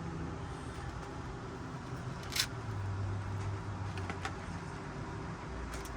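Steady low rumble in the background, with a few brief clicks and rustles from small parts being handled, the loudest about two and a half seconds in.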